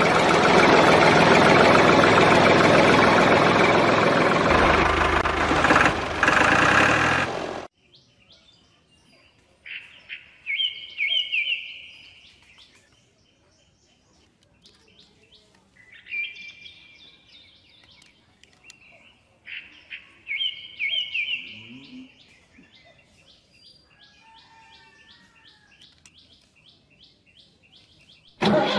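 A toy tractor's small electric motor runs loudly and steadily for about seven seconds, then cuts off abruptly. After that, birds chirp in three short bursts of quick trilled calls, with faint rapid ticking between them.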